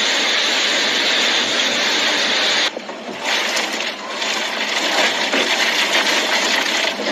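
Hailstorm: a dense hiss of heavy hail and rain, then, after a sudden change about two and a half seconds in, many individual hailstones clattering and cracking against hard surfaces.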